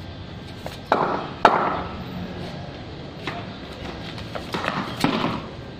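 Sharp knocks of a cricket ball in play: two loud ones about half a second apart, then a few lighter ones near the end.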